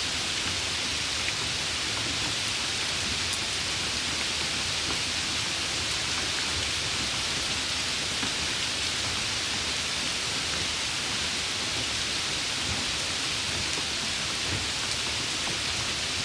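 Steady rain falling, an even hiss with no breaks or thunder.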